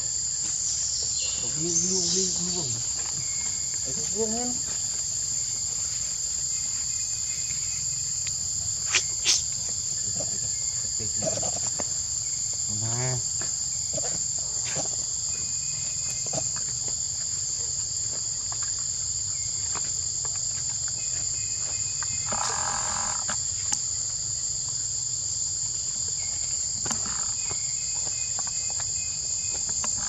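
Steady high-pitched insect chorus droning in two pitches throughout, with a few short calls near the start and middle and two sharp clicks about nine seconds in.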